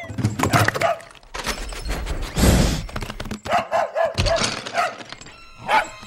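A dog barking and yipping in short bursts, with a heavy thud about two and a half seconds in.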